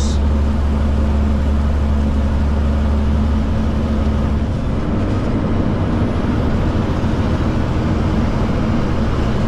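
Kenworth truck's diesel engine running on a climb, heard from inside the cab as a steady low drone over road noise. About halfway through, the deepest part of the drone eases and the engine note shifts slightly higher.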